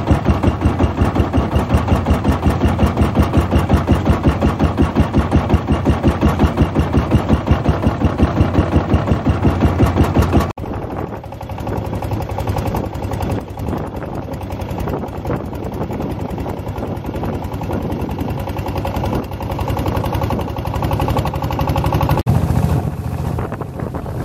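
Boat engine chugging in an even, loud rhythm of about four beats a second. About ten seconds in the sound changes abruptly to a steadier, quieter engine note with less distinct beats, and changes again shortly before the end.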